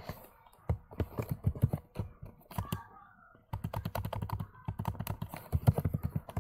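Typing on a computer keyboard: two runs of quick keystrokes with a short pause between, the second run longer.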